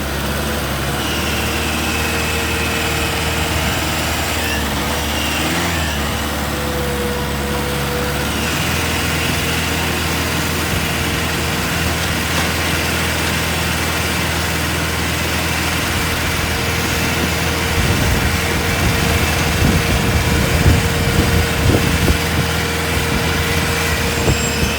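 Off-road vehicle engine running steadily under a constant whine, its note shifting about a third of the way in. It turns rougher and more uneven in the last several seconds.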